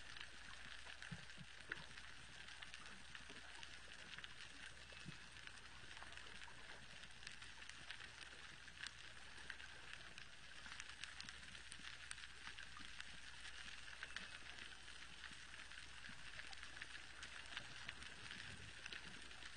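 Faint underwater reef sound: a dense, steady crackle of many sharp clicks, strongest in the high range. The high-pitched sounds are probably from resident toothed whales, not baleen whales such as humpbacks.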